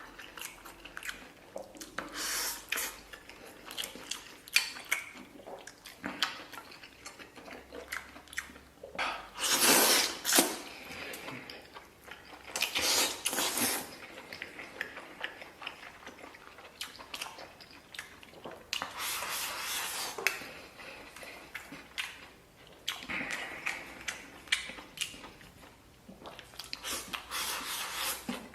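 Close-up chewing of chili stir-fried pig intestines: wet clicks and smacks throughout, with about six louder wet spells of a second or two as the pieces are bitten and chewed.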